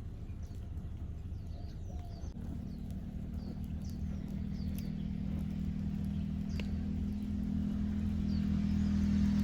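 An engine hums low and steadily, growing louder through the whole stretch as a vehicle approaches, while birds chirp now and then.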